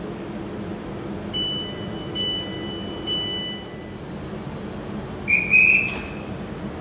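Door-closing warning of a Class 350 electric multiple unit, three high beeps in a row, then a short trilling blast on a platform dispatcher's whistle, the loudest sound, signalling the train away. A steady hum from the standing train runs underneath.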